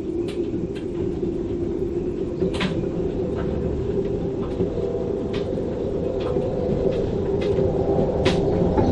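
Gale-force wind roaring through a moored sailboat's rigging, with a steady low howl, scattered sharp ticks and knocks, and a slight build toward the end.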